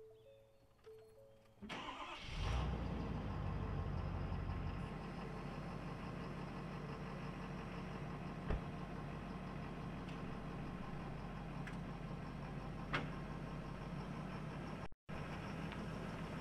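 A Ford F-250 Super Duty pickup's engine starting after a couple of short beeps. It catches about two seconds in and runs at a raised idle, then drops a little a couple of seconds later into a steady idle, with two light clicks along the way. The sound cuts out briefly near the end.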